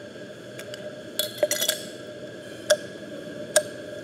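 Small plastic ladybug-shaped slime tub being opened: a quick cluster of sharp plastic clicks as the lid comes off, then two more single sharp clicks as fingers handle the clear tub.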